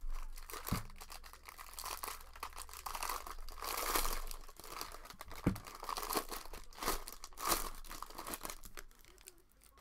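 Foil wrapper of a baseball card pack being torn open and crinkled by hand, in a long run of crackling, with a couple of soft knocks. The crinkling dies away near the end.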